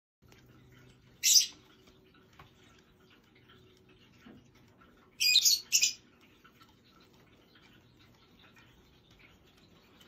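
Lovebirds mating, giving short shrill calls: one about a second in and two more close together around five to six seconds, with faint chatter between.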